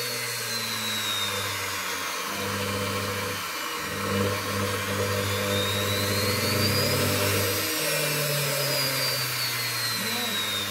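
Universal motor salvaged from a washing machine running on an electronic speed controller. Its high whine slides down, rises again midway, then falls as the speed is varied.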